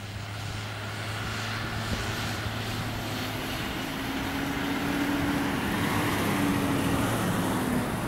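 Sugar cane harvester and haul-out tractor running under load while the harvester cuts cane and its elevator loads the bin alongside. A steady diesel hum with a higher engine tone that rises slightly, over a rushing, churning noise, growing louder as the machines come closer.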